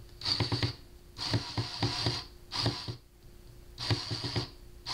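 Power screwdriver run in four short bursts, each with a rapid ratcheting clicking, while backing screws out of a speaker cabinet.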